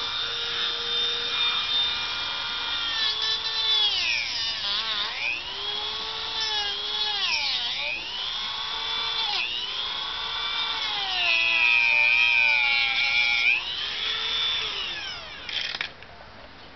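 Dremel rotary tool with a cutting disc cutting into the sealed plastic case of a laptop power supply: a loud, high whine whose pitch dips and climbs back again and again, then stops shortly before the end.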